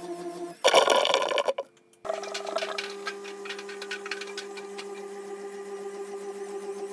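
Washing machine and its hose: a steady hum, broken about half a second in by a loud noisy rush that cuts off abruptly. The hum then resumes with a run of rapid ticking.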